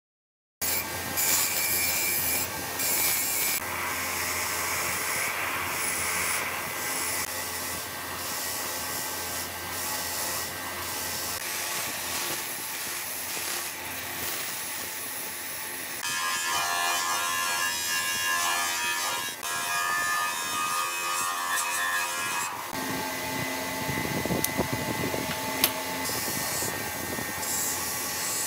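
Bench grinder wheel scouring rust off the steel housing and end cover of an old electric fan motor, a continuous rough scraping that starts about half a second in. Its tone shifts twice as different parts of the casing are pressed against the wheel.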